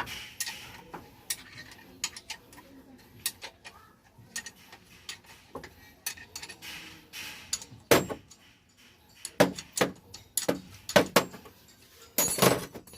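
Metal clinks and knocks of hand tools and engine parts during a Daihatsu CB engine teardown: scattered sharp clicks, louder knocks about eight seconds in and again through the second half, and a short rattle near the end.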